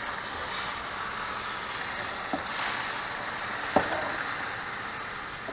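Beaten eggs sizzling on a hot griddle at about 400 degrees, a steady hiss as they spread across it. Two light knocks come through, a small one just past two seconds in and a sharper one near four seconds.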